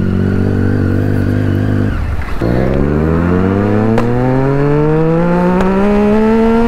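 Triumph Street Triple's three-cylinder engine running at steady revs, then a brief drop about two seconds in as the rider shifts up. After the shift the engine note climbs steadily as the bike accelerates hard through the gear.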